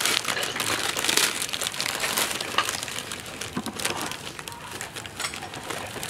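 Plastic bag crinkling and dry, brittle vermicelli noodles crackling as a bundle is unwrapped and its strands are pulled apart by hand. The crackle is densest in the first second or so, then thins to scattered small clicks.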